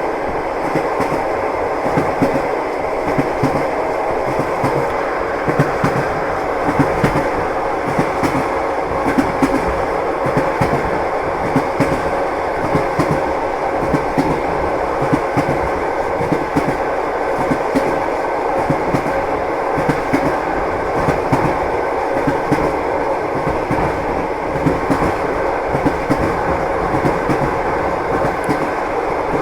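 Train wheels clattering on the rails: a steady rumble of a moving train with many short knocks and clicks from the wheels.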